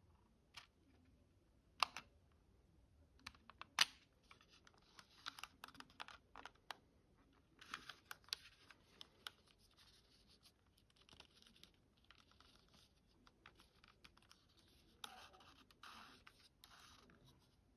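Faint handling noise from a Leningrad 7 light meter: fingers rub scratchily on its case and turn its rotating calculator dial, with scattered light clicks. The two sharpest clicks come in the first four seconds.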